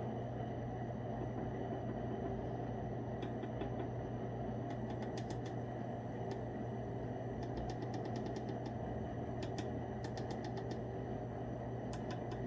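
Light, quick clicks in several short runs over a steady low hum: the push-buttons on an electric melting furnace's temperature controller being pressed to raise the setpoint.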